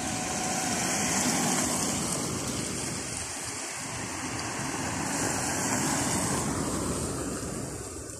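Cars passing on a wet road, their tyres hissing through the water on the asphalt, swelling twice as vehicles go by and fading near the end.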